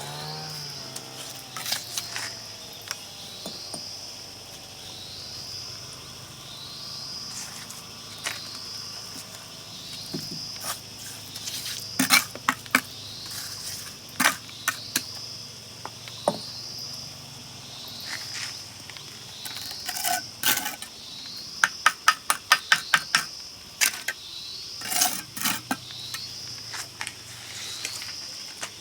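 Insects calling steadily, a high rising call repeating about once a second. Sharp knocks and taps cut across it, among them a quick run of about eight taps a little past the middle.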